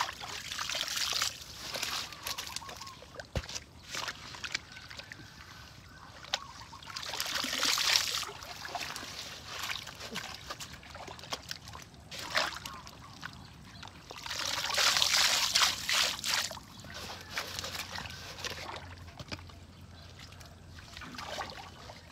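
Water sloshing and splashing in several bursts a few seconds apart, each lasting a second or two.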